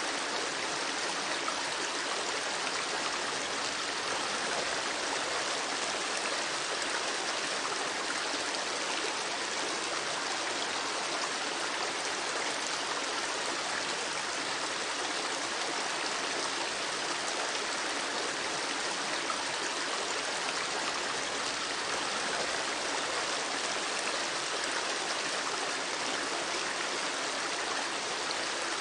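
Running water, a steady even rush with no pauses or change.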